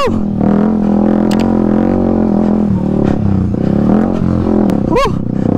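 Single-cylinder dirt bike engine running under load on a trail, its note rising and falling with the throttle. A brief high rising-and-falling sound comes right at the start and again about five seconds in.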